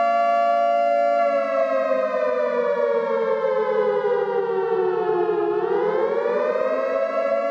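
Civil-defense air-raid siren set as an apocalypse alarm, wailing a held two-note chord. About a second in, the pitch starts a slow slide down for roughly four seconds, then swings back up to its starting pitch near the end.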